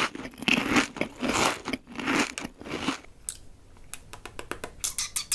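A man sucking and licking edible nail polish off his fingertip: a run of short sucking noises for about three seconds, then a string of quick lip smacks and tongue clicks as he tastes it.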